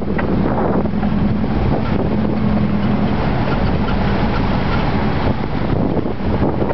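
Dune buggy engine running steadily with a constant low hum while driving over sand, with wind buffeting the microphone.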